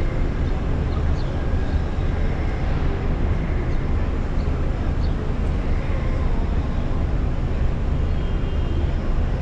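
Steady traffic noise of a busy city street, with a heavy low rumble, from cars idling in stopped traffic.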